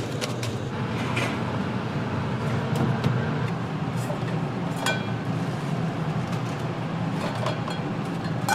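Commercial kitchen background: a steady hum with scattered clinks and taps of utensils and dishes, one ringing metallic clink about five seconds in.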